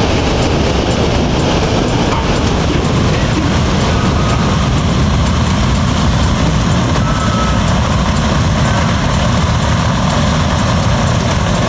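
A B-17 Flying Fortress's four Wright Cyclone radial engines running, a loud, steady, deep rumble.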